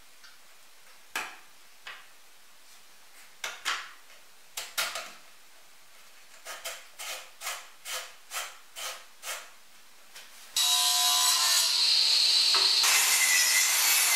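Plywood slider of a ball-bearing blast gate pushed back and forth by hand, giving scattered wooden clacks and then a run of about three clacks a second. About ten seconds in, a sliding miter saw starts up loud and steady, cutting a piece of wood.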